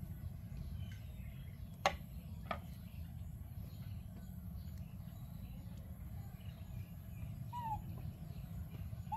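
Quiet outdoor ambience with a steady low rumble. Two sharp clicks come about two seconds in, and short chirps come near the end.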